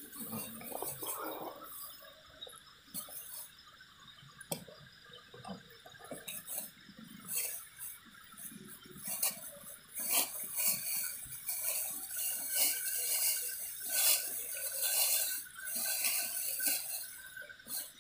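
Plastic bag and paper rustling and crinkling as items are unpacked and handled, in many short irregular bursts that grow louder and busier in the second half.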